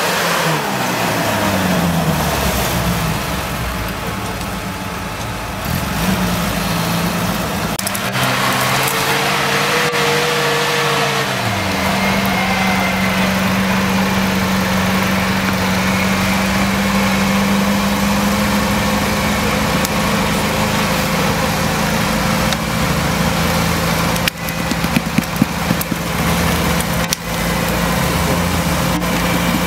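Off-road UAZ jeep's engine labouring in deep sand, its pitch dropping away twice as the revs fall, then settling into a steady drone. A few sharp knocks come near the end.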